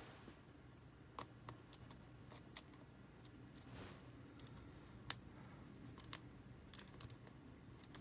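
Faint, scattered clicks and ticks of a small screwdriver working out the screws that hold a laptop battery in place, with one sharper click about five seconds in.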